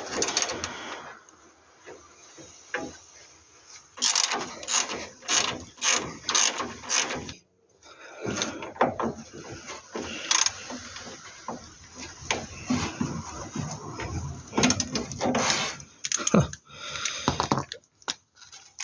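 Socket ratchet wrench clicking in short runs as the nuts on a sway bar bush clamp are undone.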